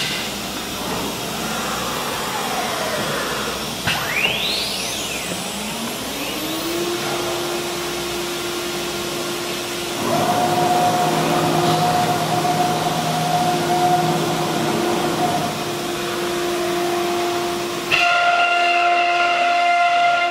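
Large CNC router running: a steady mechanical hiss with a motor whine that rises in pitch about five seconds in and then holds steady, joined by a second, higher steady tone about ten seconds in. A brief high sweep sounds about four seconds in.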